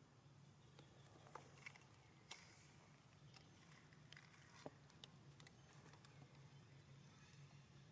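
Near silence: faint, scattered ticks and rustles over a low steady hum.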